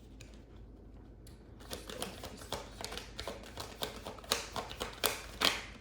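Tarot cards being handled and laid down: after a short quiet start, an irregular run of quick clicks and snaps from the cards and fingers against the table, a couple of them louder.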